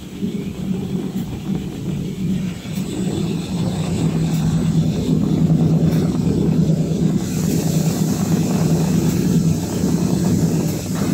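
Kitchen towel paper rewinding machine running with a steady low drone. A brighter hiss joins about seven seconds in.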